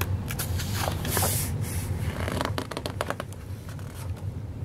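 Pages of a hardcover picture book being turned and handled: paper rustling and sliding about a second in, then a run of light clicks and taps, over a low steady hum.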